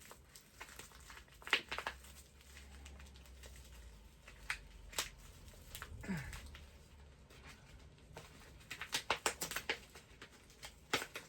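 Toy packaging being handled as a doll's braid is pulled out of it: crinkling and scraping with scattered sharp clicks, and a quick run of clicks about nine seconds in.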